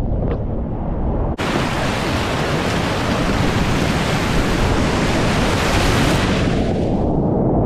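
Whitewater rushing and splashing over a kayak's bow as it runs a rapid, heard close on the microphone. There is a short break about a second and a half in, and near the end the high splashing hiss drops away, leaving a duller rush.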